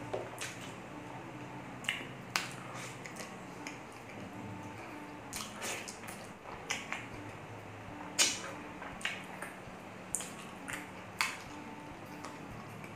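Close-up eating sounds: a man chewing and smacking his lips, with irregular wet clicks and squishes as he eats saucy pork ribs caldereta and rice with his fingers. A low steady hum runs underneath.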